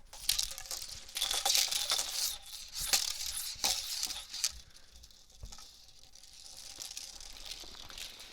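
A hula hoop spinning around a body, giving irregular swishes and sharp clicks. It is louder through the first half and grows softer after about four and a half seconds.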